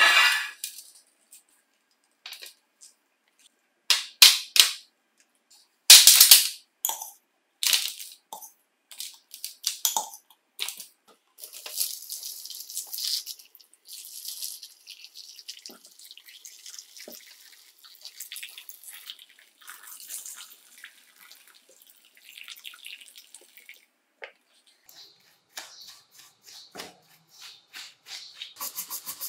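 Plastic impact-driver housing parts set into an aluminium tray with a few sharp knocks, then water pouring and splashing into the tray over the soapy parts. Near the end a brush scrubs the wet plastic.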